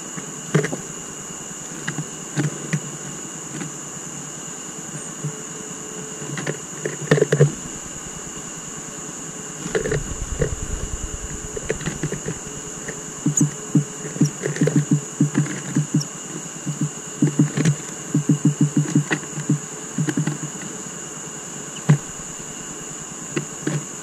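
Blue tits pecking and hammering at sunflower seeds on the wooden floor of a bird feeder: sharp taps, a few scattered at first, then quick runs of several a second through the middle and latter part. Under them runs a steady high-pitched whine.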